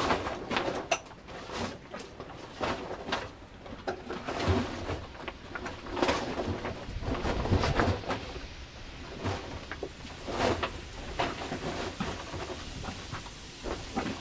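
A large fabric cover rustling and brushing as it is pulled over a table and tucked in, in a steady run of irregular crinkles and scrapes.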